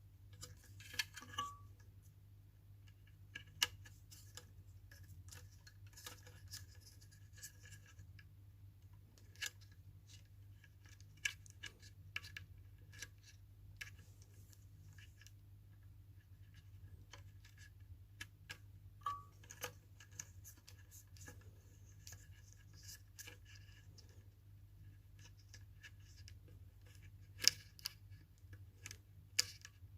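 Faint, scattered small clicks and light taps of hand work on small parts, irregular and a few louder than the rest, over a steady low hum.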